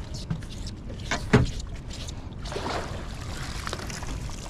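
Wet buoy line of a lobster hoop net hauled up hand over hand, water splashing and dripping off the rope, with a sharp knock against the boat about a second and a half in over a steady low rumble.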